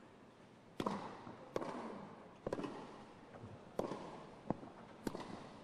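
Tennis ball being struck and bouncing during a point: a series of sharp pops, one every second or less, over a hushed stadium.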